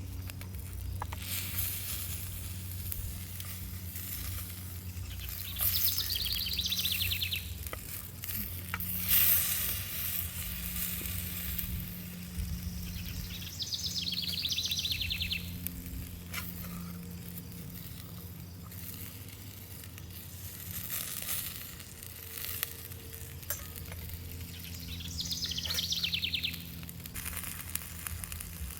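A bird's rapid trill, given three times about ten seconds apart, over a steady background hiss.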